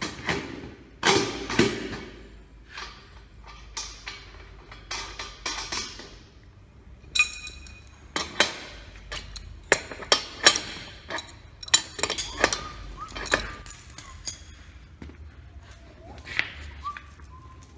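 Irregular metal clinks and knocks from fitting a pneumatic wheel onto a metal trolley axle and tightening its hub nut with a wrench, tools and parts tapping against each other and the concrete floor.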